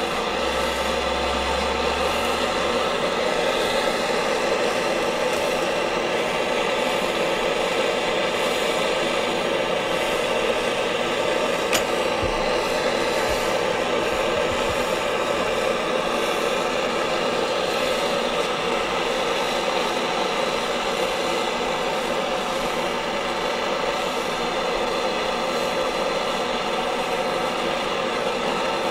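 A bench gas burner running with a steady hiss, with one light click about twelve seconds in.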